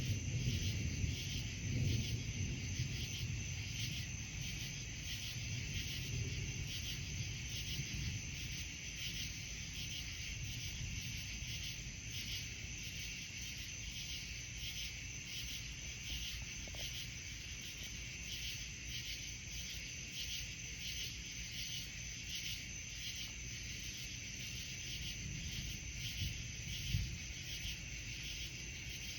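Crickets chirping in a steady, evenly pulsing chorus. A low rumble of distant thunder rolls in the first several seconds and fades away, and there is one brief low thump near the end.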